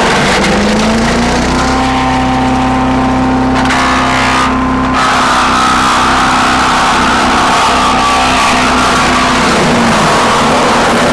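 Earthquake wood chipper's gas engine running loudly at speed over a dense grinding noise, its pitch rising shortly after the start, holding steady, then sagging near the end.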